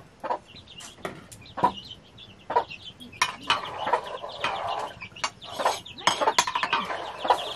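Chickens clucking, more busily in the second half, over sharp clinks of a metal ladle knocking and scraping in a metal cooking pot as it is stirred.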